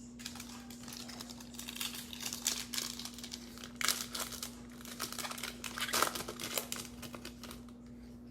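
Plastic wrapper of a football trading-card pack being torn open and crinkled in the hands: a run of crackling and rustling, loudest twice in the middle, over a faint steady hum.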